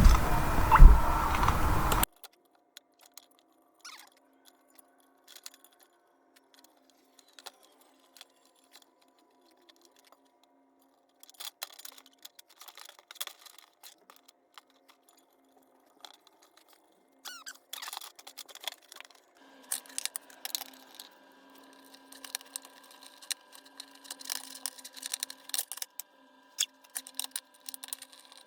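A louder stretch of sound for about two seconds cuts off suddenly. Then come faint, scattered light clicks and taps of small parts being handled. Past the two-thirds mark a faint steady hum comes in and the clicks become more frequent.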